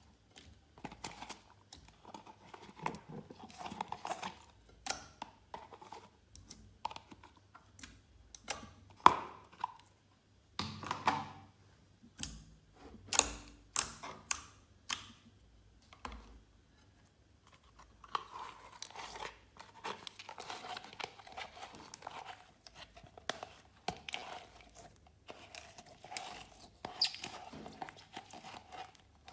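Glossy slime being worked by hand, mixed with added bits, with irregular sticky crackles, clicks and squelches.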